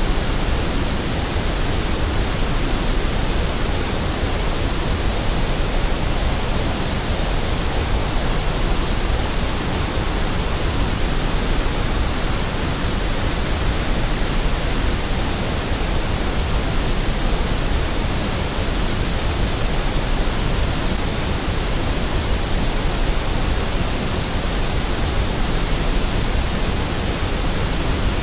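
Steady, unchanging white noise: an even hiss spread across all pitches, with no tones or breaks.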